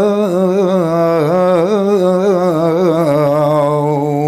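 A man singing a Spanish song unaccompanied, drawing out one long wavering line that steps down in pitch.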